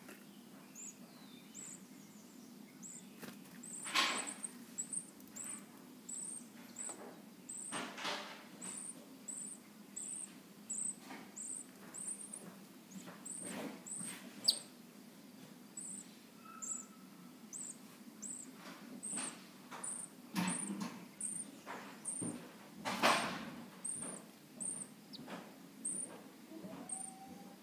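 Phoebe nestlings begging from the nest: high, thin peeps, each falling slightly, repeated a little over once a second. A few louder brief noises break in now and then.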